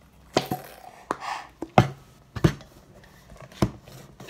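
Stainless steel mixing bowl knocking and clattering while slime is mixed in it: about six sharp knocks at uneven intervals.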